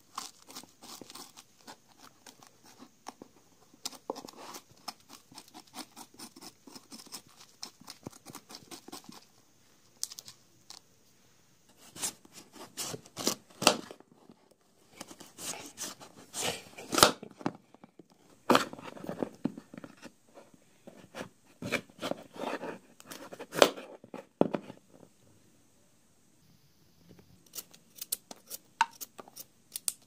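Close-up handwork with paper rope: a run of small snips, clicks and rustles, with several louder bursts of cutting and crinkling through the middle.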